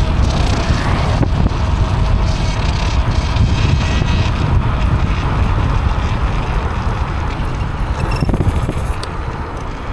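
Wind buffeting the microphone while riding a KuKirin G4 electric scooter, with a steady rumble of tyres on the road.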